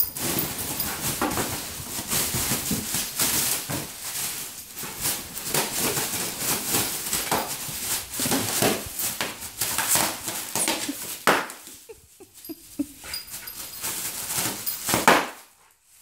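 Plastic air-pillow packing crinkling and rustling as a dog bites and paws at it, with a loud sharp crack near the end.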